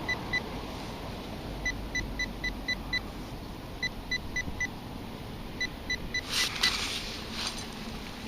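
Metal-detecting pinpointer beeping in short runs of evenly spaced, same-pitched high beeps, about five a second, as it is swept over a dig hole to find a target still in the soil. A few scrapes of soil being disturbed come near the end.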